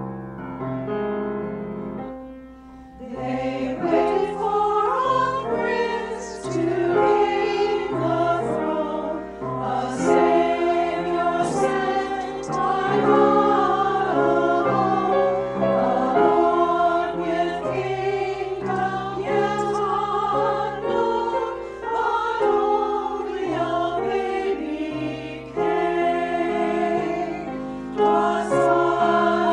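Music: a choir singing with piano accompaniment, the voices coming in about three seconds in after a short quiet piano passage.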